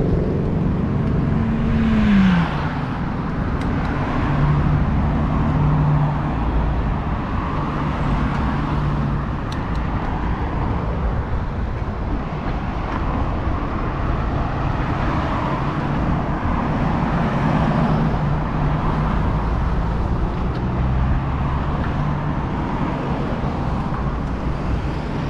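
Road traffic: motor vehicles running and passing, with one vehicle's pitch falling as it goes by about two seconds in.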